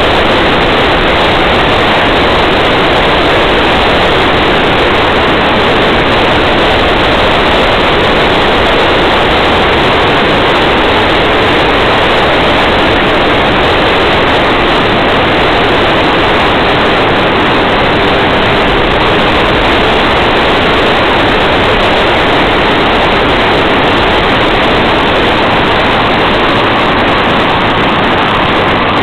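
Steady, loud rushing noise of a car driving along a paved road: tyre and wind noise, with no clear engine note standing out.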